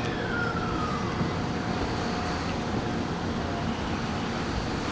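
Sanyo Electric Railway train running at the station platform: steady running noise, with an electric whine that falls in pitch over the first second and a steady hum-tone that fades out a little past halfway.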